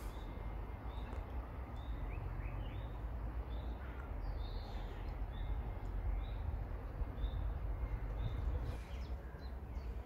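Outdoor ambience: a bird repeats a short high call about every two-thirds of a second over a steady low rumble.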